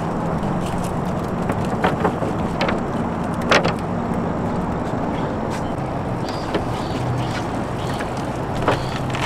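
A steady low motor hum, with a few sharp clicks and knocks as a cast net is hauled aboard and emptied into a plastic basket on the boat deck.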